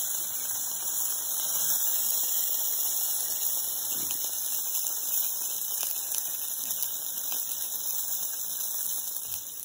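Chicken wings sizzling in a just-opened hot sandwich maker: a steady high hiss with a few faint pops, cutting off suddenly at the end.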